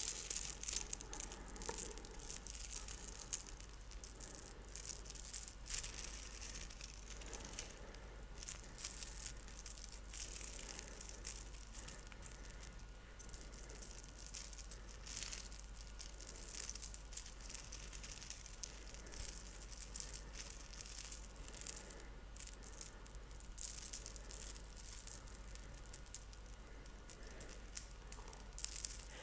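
Thin necklace being lowered from a raised hand into the other palm again and again, giving soft, irregular clinking and rattling close to the microphone.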